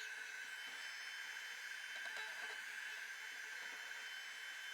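Small vacuum cleaner running steadily with a high whine, sucking lint out of the underside of a sewing machine.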